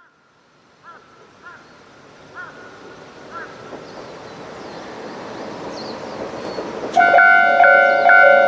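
Rumble of an approaching KiHa 40 series diesel train, growing steadily louder. About seven seconds in, a Japanese level-crossing alarm starts suddenly, its electronic bell striking about twice a second.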